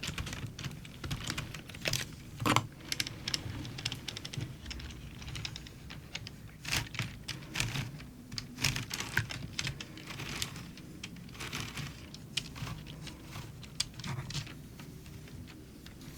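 LEGO Technic pieces being handled and pressed together, an irregular run of small plastic clicks and taps.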